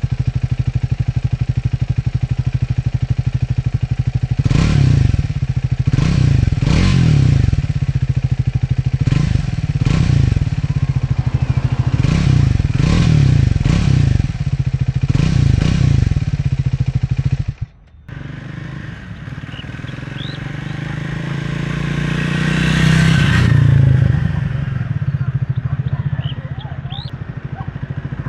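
Triumph Speed 400's 398 cc single-cylinder engine idling through its stock exhaust, blipped in a run of about a dozen short revs. The sound then cuts off abruptly, and a quieter engine sound swells and fades away.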